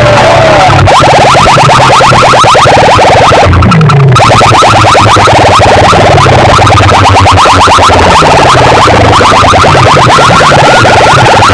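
Loud electronic DJ music played through a DJ sound system: a fast stuttering synth figure repeating many times a second over falling bass sweeps. It drops out briefly about three and a half seconds in, then picks up again.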